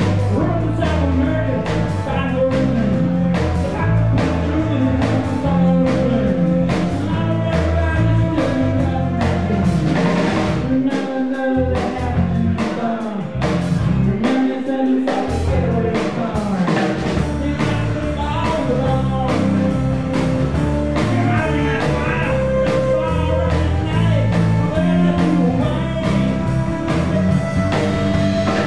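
Live folk band playing: strummed acoustic guitar, violin, bass and drum kit keeping a steady beat, with singing over it. For a few seconds near the middle the bass and low drums drop away, then come back in.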